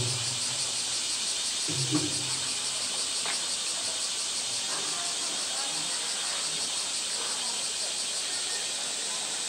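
Polar bear handling a hollow blue plastic toy in the pool, with dull knocks against the pool edge right at the start and again about two seconds in. Under it runs a steady high-pitched drone of summer cicadas.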